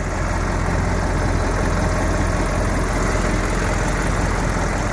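Naturally aspirated Caterpillar 3208 V8 diesel in a 1964 Carpenter Corsair rear-engine bus, idling steadily, heard close up at the open engine bay.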